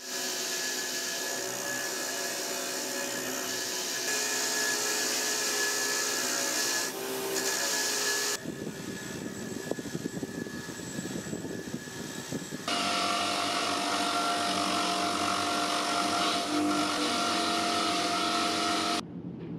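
Electric bench grinder running, a steady motor whine over a hiss of the spinning wheel scrubbing rust off an iron wrench held against it. The sound changes abruptly twice and stops suddenly near the end, as separate passes are joined.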